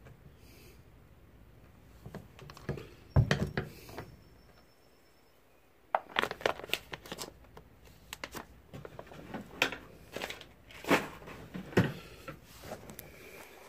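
Handling noise on a workbench: irregular clicks, knocks and rustles as the camera and reloading gear are moved, the loudest a thump about three seconds in. Partway through the sound drops out to dead silence for about a second, then the clicking and knocking resume.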